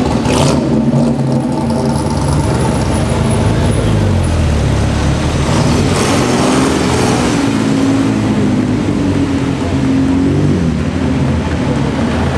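Engines of classic sports cars pulling away one after another: a Morgan Plus 8's V8 moving off first, then an Austin-Healey. The engine note rises in pitch as the cars accelerate, about four seconds in and again about ten seconds in.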